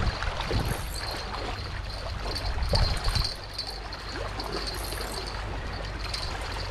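River water trickling and lapping, with a few light splashes as a hooked fish is drawn in close.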